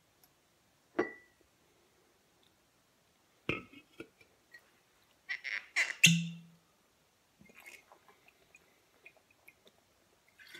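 Glass whiskey bottle being handled: sharp knocks about one and three and a half seconds in, then a cluster of clicks and clatter about six seconds in as the cap is worked off, followed by faint small sounds of drinking from the bottle.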